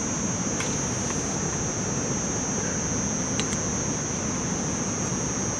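Steady background hiss with a constant high-pitched insect drone, broken by a few faint clicks.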